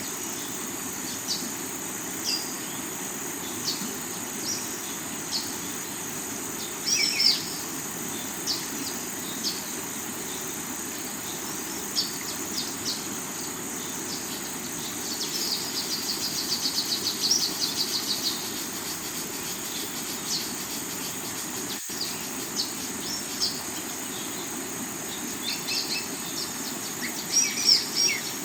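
Steady rush of water from a rocky river, with insects keeping up a steady high buzz and birds calling in short scattered chirps, including a fast trill about halfway through and a burst of calls near the end.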